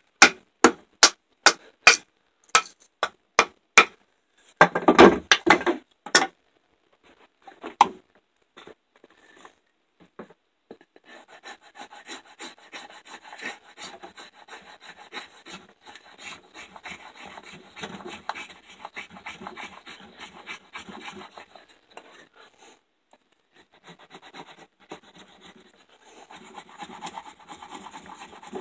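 A run of sharp wooden knocks, about two a second, ends in a louder flurry near six seconds. Then, from about ten seconds in, an MTech fixed-blade knife shaves a wooden stick into a feather stick: a steady scraping rasp of blade on wood, stroke after stroke.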